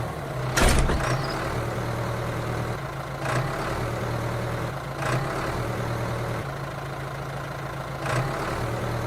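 Engine idling with a steady low hum. There is a sharp knock about half a second in and three softer bumps later.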